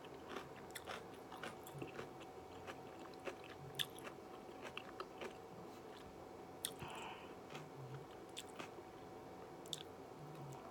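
Faint close-up chewing of a shrimp tempura sushi roll: scattered small crunches and wet mouth clicks, with a bite into a fresh piece near the end.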